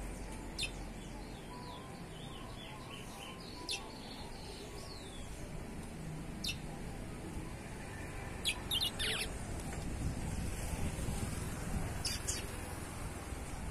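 Young chestnut-bellied seed finch (curió) singing: sharp, high notes every few seconds, a quick cluster of them near the middle, and a run of faint falling whistles in the first few seconds, over a steady low background rumble.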